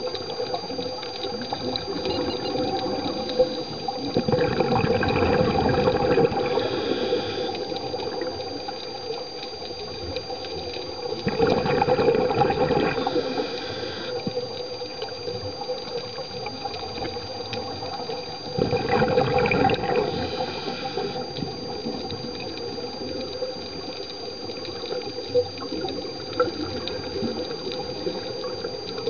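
Underwater scuba breathing: a regulator's exhaled air gushing out as bubbles in three long surges about seven seconds apart, over a steady underwater hiss and a faint steady whine.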